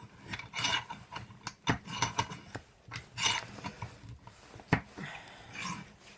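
A euro cylinder lock being set into a bench vise and clamped: irregular metal clicks, knocks and short scrapes, with one sharp click near the end.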